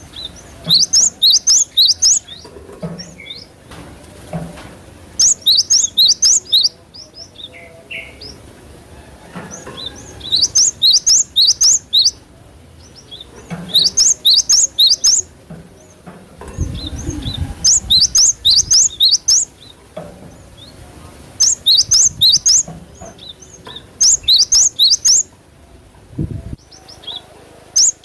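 Cinereous tit (gelatik batu) singing: repeated bursts of five or six quick, high, downward-sweeping notes, a new burst every couple of seconds. A low rumble about two-thirds of the way through, and a short low thump near the end.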